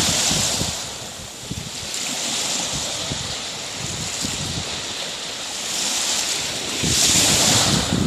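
Black Sea surf washing onto the shore, swelling and ebbing, with the loudest wash about seven seconds in. Wind rumbles on the microphone.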